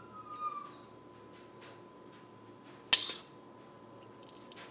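A metal spoon working flour into a plastic measuring cup: light scrapes and small ticks, with one sharp tap about three seconds in. Faint high chirping in the background.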